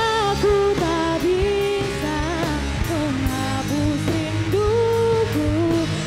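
Live pop-rock band: a woman singing the lead melody, holding notes with vibrato, over electric guitars and a drum kit with steady cymbal strokes.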